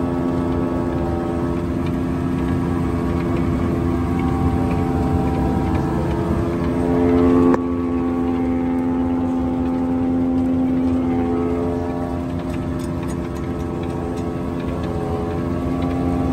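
John Deere 9700 self-propelled forage harvester running with its knives engaged, heard up close at the header: a loud, steady drone with several whining tones over a low rumble. About seven and a half seconds in, the sound swells briefly and then drops sharply.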